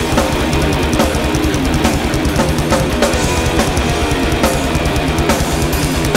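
Live thrash metal band playing: fast distorted electric guitar riffing over bass and a drum kit.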